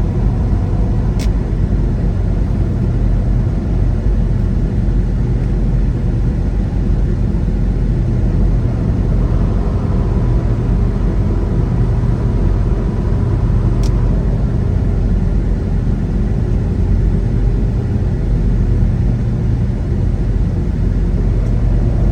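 Steady low drone of a semi-truck at highway speed, engine and tyre rumble heard from inside the cab. Two short sharp clicks, about a second in and again about 14 seconds in.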